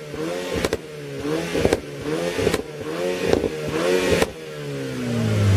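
Performance car engine revved again and again, about once a second, with a sharp crack from the exhaust on each rev. Near the end the revs fall away and a deeper engine note grows louder.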